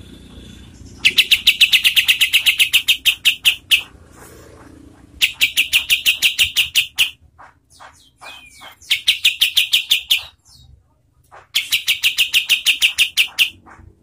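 Olive-winged bulbul (kapas tembak) singing its rapid 'tembakan' phrases: four loud bursts of fast, evenly spaced high notes, each about two to three seconds long, with a few softer single calls between the second and third.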